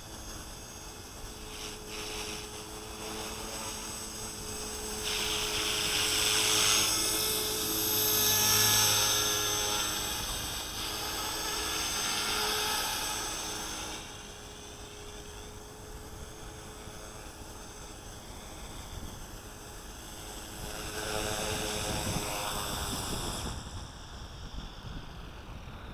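Small 250-size electric RC helicopter (CopterX CX250SE) in flight: a high-pitched whine of the electric motor and spinning rotors. It grows louder and fades twice, and the highest part of the whine drops away near the end.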